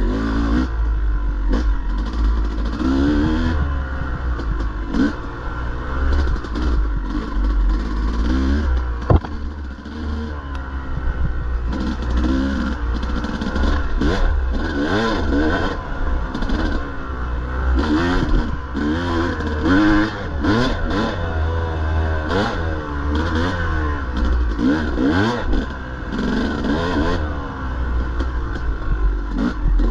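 Dirt bike engine revving up and down constantly as it is ridden, with clattering from the bike over rough ground and one sharp knock about nine seconds in.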